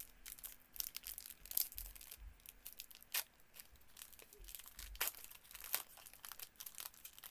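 A hockey card pack's wrapper being torn open and crinkled by hand: irregular crackling and tearing rustles.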